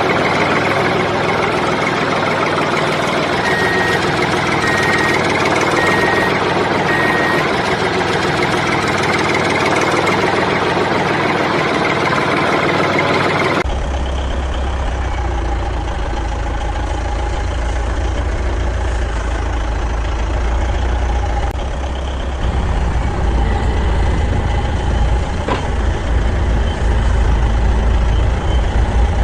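Heavy vehicle engine running, with four short evenly spaced beeps a few seconds in, like a reversing alarm. About halfway through it cuts abruptly to a deep, low engine rumble that carries on.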